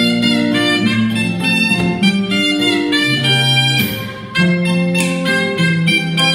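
Instrumental background music: a melody of held notes over a bass line, dipping briefly about four seconds in.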